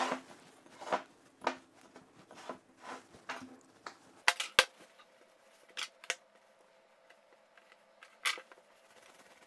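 A small kitchen knife cutting a ball of dough into pieces on a wooden tabletop: a few sharp taps of the blade on the wood, starting about four seconds in and again near the end. Before that come softer knocks and rustles of the dough being lifted from a ceramic bowl and pulled apart by hand.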